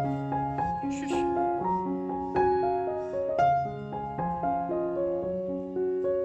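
Solo piano playing as background music: a slow melody over held chords, with new notes struck every half second or so.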